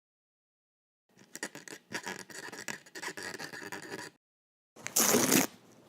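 Edited bursts of scraping and rattling cut against dead silence: about three seconds of scraping dotted with small clicks, then after a short gap a brief, louder burst near the end.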